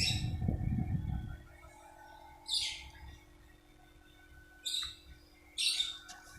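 Lovebird giving four short, high chirps a second or two apart, over a low rumbling noise that stops about a second and a half in.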